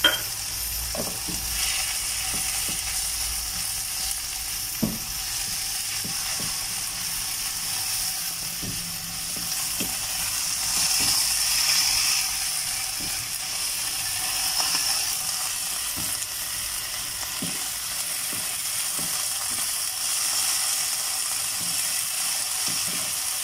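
Chopped onion, tomato and green chillies sizzling in oil in a nonstick frying pan, stirred with a spatula that scrapes and taps against the pan in short irregular clicks.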